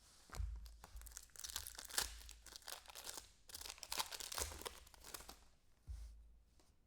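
Trading cards and their foil pack wrapper being handled, with irregular crinkling and rustling and a few low thumps.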